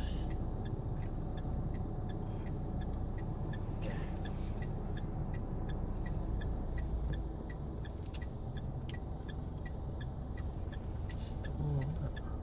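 Steady low vehicle rumble inside a car, with a faint regular ticking about twice a second and a few brief clicks from handling the mount.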